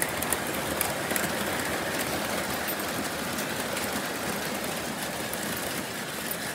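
Lionel model train rolling over a trestle: a steady whirring rumble of wheels on the track, with a few light clicks in the first second or so.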